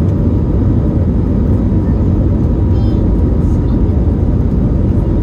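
Steady cabin noise inside an Airbus A321neo airliner: a loud, even low rumble with a faint steady whine above it.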